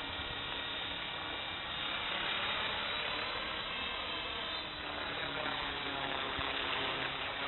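Radio-controlled model helicopter flying overhead: a steady whine from its motor and rotors over a hiss of rotor wash.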